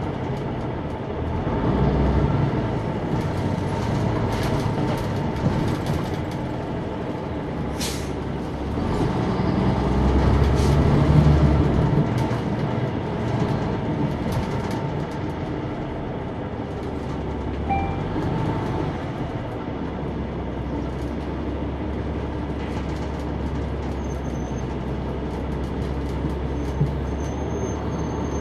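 Interior sound from the rear of a Neoplan AN459 articulated transit bus under way: its Caterpillar C-9 diesel engine runs with a steady low rumble that swells louder about two seconds in and again around ten to twelve seconds in, with road and body noise. A brief sharp noise comes about eight seconds in.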